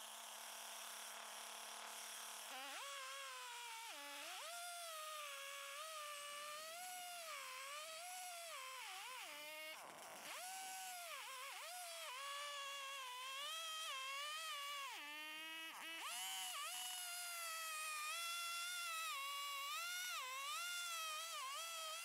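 Chainsaw in an Alaskan-type mill ripping a maple log. Its engine pitch rises and falls continually as it works under load, with several brief sharp dips.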